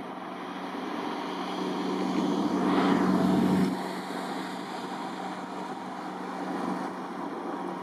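Small tugboat's engine running steadily as it tows a barge, with a louder rushing swell that builds from about two seconds in and cuts off abruptly near the middle.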